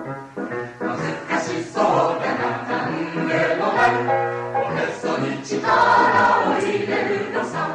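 Mixed choir singing a Japanese children's song, many voices together in full chorus.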